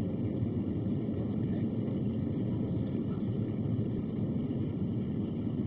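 Steady cabin noise of a Boeing 737-700 climbing just after lift-off: the engines' deep rush at take-off thrust mixed with airflow, heard from inside the passenger cabin.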